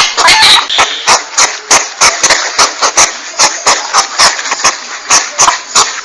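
Porcupine sounds, played as a hunting lure: a rapid run of short, sharp, clicking bursts, about three or four a second, over a constant hiss.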